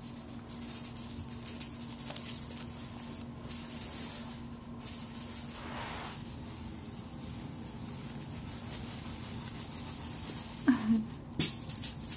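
Kittens scrambling over a nylon tote bag and the papers inside it: a crinkly rustling and scratching of fabric and paper that comes and goes, louder and scrappier near the end.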